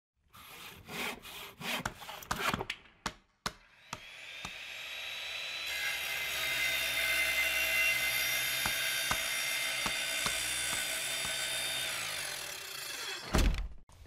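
Channel-intro sound effects: a run of short, sharp hits for the first few seconds, then a long steady swell with a high whine in it that fades out near the end.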